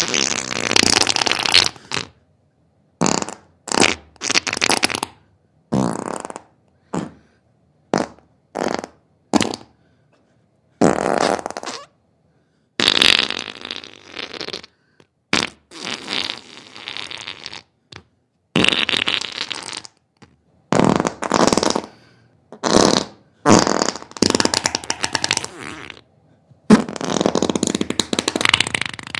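About twenty separate bursts of raspy noise, from a fraction of a second to about two seconds long, with dead silence between them.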